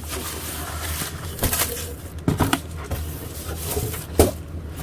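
Cardboard boxes being handled: rustling and scraping as a small cardboard box is lifted out of a larger shipping box, with several knocks as it is moved and set down.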